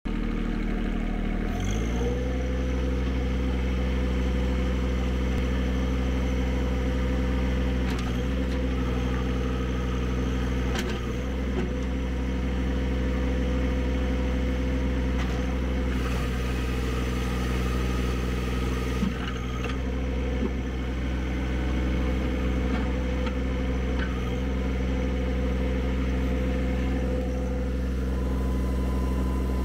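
John Deere 1023E compact tractor's three-cylinder diesel engine revving up from idle about two seconds in, then running steadily at the higher speed.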